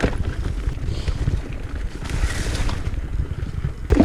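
Low, steady rumble of wind buffeting the microphone, with a faint hiss above it.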